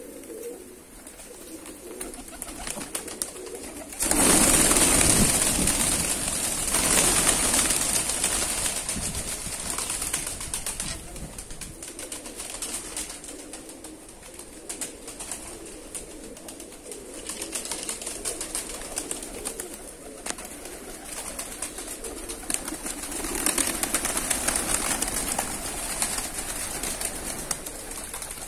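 A flock of fighting pigeons cooing and stirring, with a sudden loud rush of wingbeats about four seconds in that fades over several seconds, and more wing noise near the end as birds take off.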